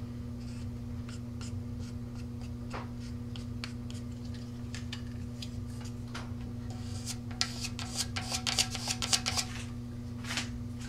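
Small handling sounds of a felt marker inking a wooden tongue depressor. The depressor is then rubbed along the fin-to-tube joint of a scuffed rocket body tube, with a quick run of scraping strokes about seven seconds in. A steady low hum lies underneath.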